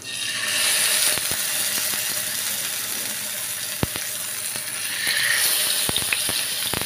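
Whole bata fish, marinated in salt and turmeric, sizzling steadily as it fries in hot oil in a non-stick pan; the hiss starts as the fish goes into the oil. A few sharp clicks cut through it over the second half.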